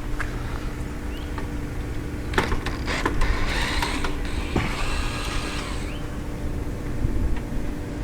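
A few clicks and knocks from bolts and coop hardware, then a creaking squeak lasting about two and a half seconds as a bolt is worked into the chicken-coop frame.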